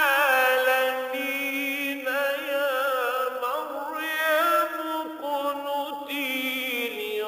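A male reciter chanting the Quran in the slow, melodic mujawwad style. He draws out one long phrase in held notes with wavering, ornamented turns of pitch.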